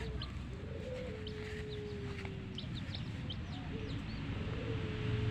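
Baby chicks peeping in many short, high, falling notes, while a hen gives a low, drawn-out call twice, each held for a second or two.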